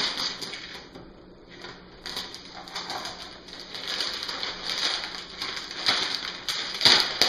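Packaging of a Lego base plate being wrestled open by hand: irregular crinkling and rustling in uneven surges, with a sharper, louder crackle near the end.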